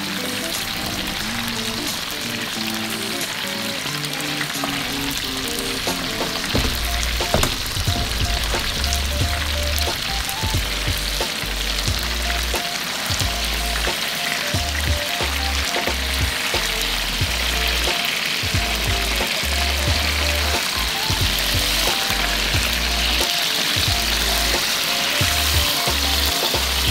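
Spotted mackerel pieces sizzling steadily as they pan-fry in hot olive oil, over background music.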